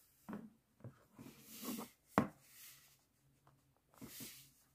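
Clear plastic display case of a model locomotive being handled: a few light knocks and two stretches of sliding, scraping plastic, with one sharp click about two seconds in.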